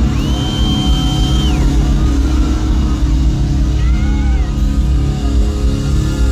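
Live rock band playing loud through a PA, with heavy bass and drums and electric guitar. A high note is held for about a second and a half near the start.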